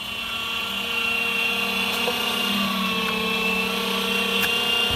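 Electric meat grinder running with a sausage-stuffing tube, its motor giving a steady whine and hum as ground meat is pushed into the casing.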